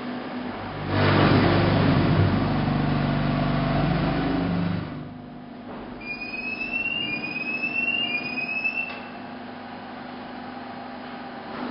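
Machinery running in a concrete block plant's production hall. About a second in, a loud motor starts and runs for about four seconds before dropping back to a steady hum. Near the end come three short rising squeals, about a second apart.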